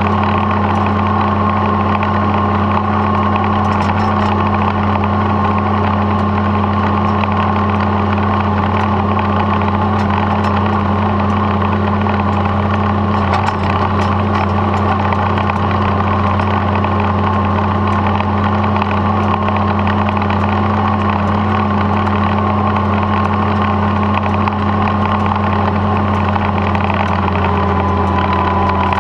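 Tractor engine running steadily at a constant speed as the tractor drives along, heard close up from its hood.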